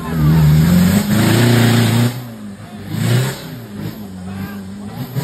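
Off-road 4x4 engine revving hard in bursts, its pitch rising and falling, loudest for the first two seconds, easing off, then surging again about three seconds in.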